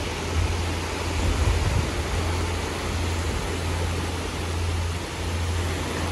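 Small sea waves breaking and washing up a sandy beach, a steady rush of surf, with wind rumbling on the microphone as the loudest part.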